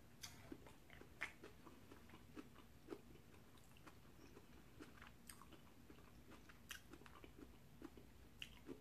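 Faint chewing of a mouthful of pasta salad, with scattered small wet clicks and smacks of the mouth.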